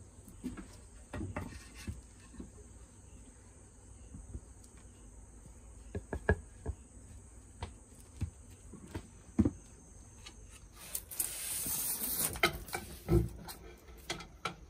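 Wooden blocks of lumber set down and shifted on a plastic-wrapped solar panel: a scattering of dull knocks, with insects buzzing steadily in the background until about eleven seconds in. Near the end there are a couple of seconds of rustling as a large sheet is handled.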